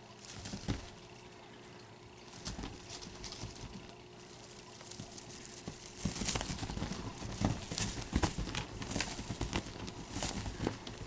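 Bengal kitten's paws thumping and scrabbling on a textured cloth bedspread as it pounces on and chases a feather wand toy, in irregular soft thumps and scratches that come thicker and faster from about six seconds in.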